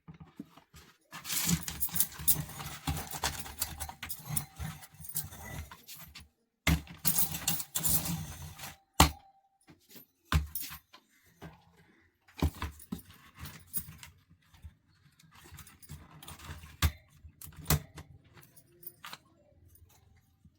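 Irregular clattering and jingling of small hard objects being handled, with sharp clicks. The longest bursts come from about a second in to six seconds, then again around seven to nine seconds, followed by scattered clicks and short rattles.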